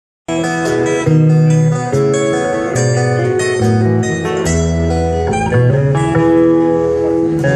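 Live band playing an instrumental intro on acoustic and electric guitars over a bass line, plucked notes ringing over held low tones, with no singing yet.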